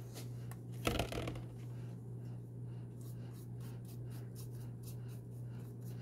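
Paintbrush strokes scratching on a dino mask, a light dry scratching repeated several times a second, with one knock about a second in. A steady low hum lies underneath.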